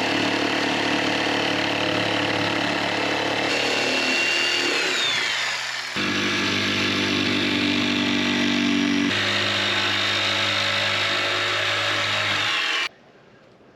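Electric power tool motor running at a steady pitch in several spliced stretches. About four seconds in, its pitch falls as the motor spins down.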